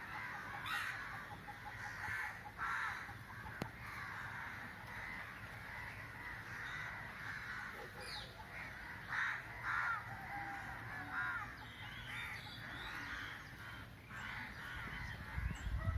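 Parrots squawking: short, harsh calls repeating every second or so.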